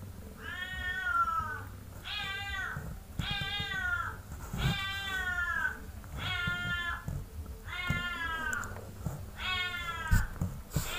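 A cat meowing seven times, evenly spaced, each meow short and dropping slightly in pitch.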